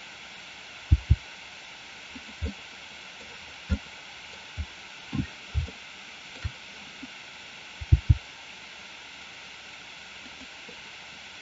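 Soft low thuds of computer mouse clicks and key presses, about ten of them, some in quick pairs, over a steady microphone hiss.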